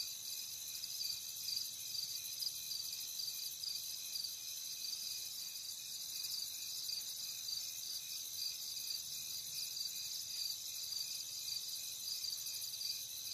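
Insects chirping in a steady high-pitched chorus, several fast-pulsing trills at different pitches running together.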